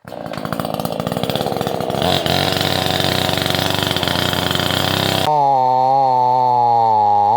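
Chainsaw running at high revs while felling a pine, its engine note wavering as the bar works through the cut. About five seconds in the sound changes abruptly to a cleaner, steadier engine whine.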